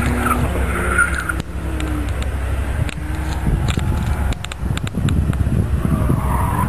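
Kia Picanto rally car's engine running as the car slides through slush on a wet surface. The engine note fades after about a second and a half and a short rise in pitch follows, over a steady hiss of tyres on the wet ground.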